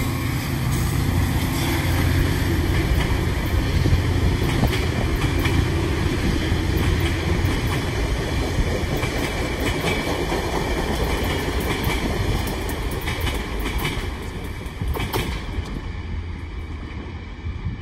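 Caltrain passenger train's bilevel coaches rushing past at speed: steady low rumble of the train with wheels clattering on the rails, dying away over the last few seconds as the train recedes.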